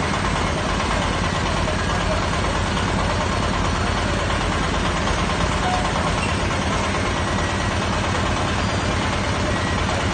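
Engine of a hydraulically driven well-drilling rig running steadily, with a dense low, even pulsing.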